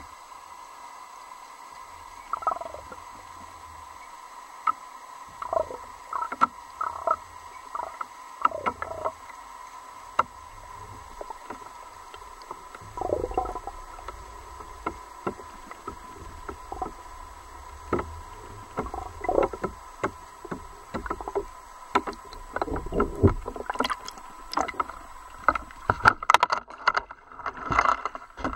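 Underwater recording from a camera in a housing on a handheld rig: a steady faint hum with scattered knocks and short gurgling sounds, growing busier and louder over the last few seconds as the rig nears the surface.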